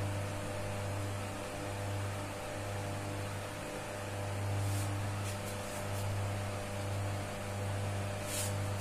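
Steady low electrical hum throughout, with a few short scratches of a marker drawing strokes on a whiteboard, the clearest about two thirds of the way through and near the end.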